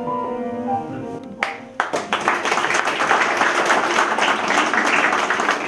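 Background piano music, then about a second and a half in an audience starts applauding, the clapping carrying on over the music.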